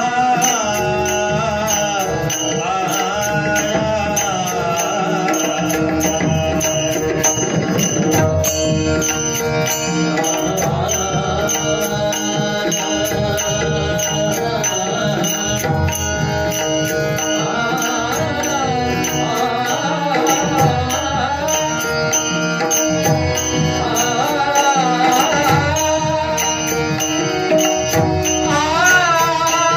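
Marathi devotional bhajan: a male lead singer sings an ornamented melodic line over a held drone, with a hand drum and a steady high ticking beat of small cymbals.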